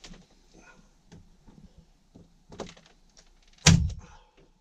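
Nail gun firing once about three-quarters of the way through, a single sharp bang, fixing a board of ceiling cladding; light clicks and knocks of handling the tool and board come before it.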